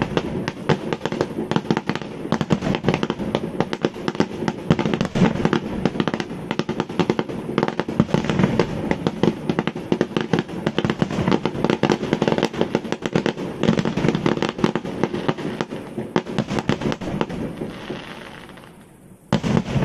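Rapid, dense barrage of firework bangs and crackles, many reports a second, running without pause. It fades away near the end and then a new burst of bangs starts abruptly.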